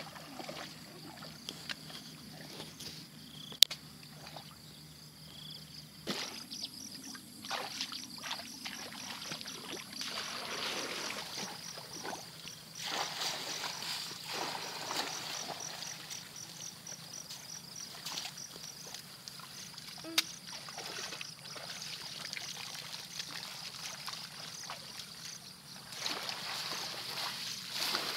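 Splashing and sloshing of people wading through shallow floodwater and pushing bamboo basket fish traps down into it, with water trickling.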